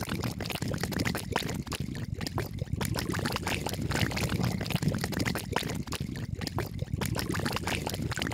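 Fizzing of a dissolving effervescent tablet in water inside a clear plastic toy capsule, with pink foam bubbling up: a dense crackle of tiny pops over a watery hiss.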